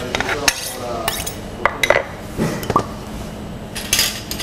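A chef's knife scraping chopped shallot off a cutting board into a metal pan: a series of scrapes and clinks of the blade against board and pan.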